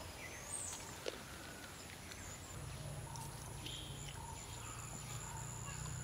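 Faint outdoor ambience with a few short bird chirps and a soft click; a low steady hum comes in about two and a half seconds in.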